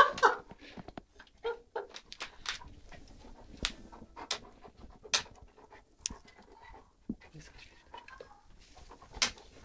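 A dog and a kitten play-fighting: a string of short, scattered breaths, huffs and scuffling sounds as the dog mouths at the kitten batting its face.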